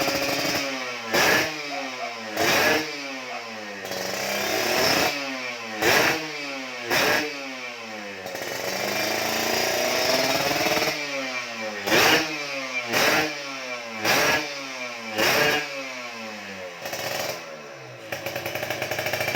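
Kawasaki Ninja 150's two-stroke single-cylinder engine running through an Empush aftermarket exhaust, revved in about a dozen sharp throttle blips, each dropping back toward idle, with one longer, slower rev held in the middle.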